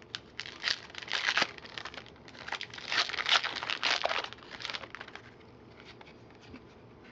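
Wrapper of a trading-card pack being torn open and crinkled by hand, in two spells of crackly rustling over the first four seconds, then faint handling.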